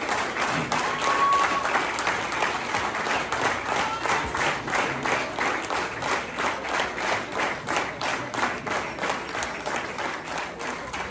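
Audience applauding, the clapping falling into a steady rhythmic beat of about three claps a second in the second half and growing fainter toward the end.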